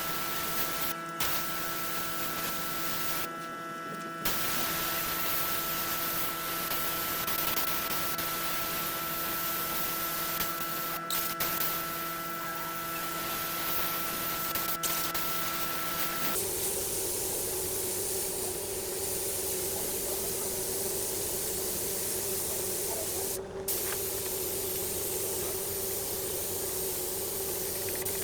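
Wood lathe running with a steady motor hum over a constant hiss, broken by a few short cuts. About halfway through the hum changes to a different, lower-sounding tone.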